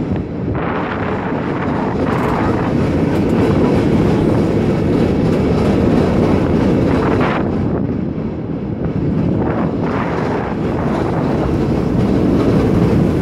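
San Francisco cable car rolling along its rails, a steady loud rumble with rattling from the wheels and track.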